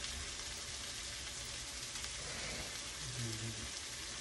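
Onions and green bell pepper sizzling steadily in a hot nonstick wok on a gas stove while red chilli sauce is poured in.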